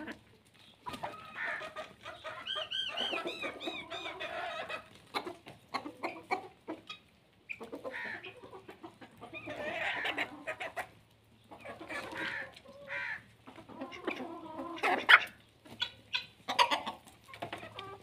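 Free-range chicken flock, hens and a rooster, clucking and calling over and over in bunches as they feed, with short sharp clicks among the calls.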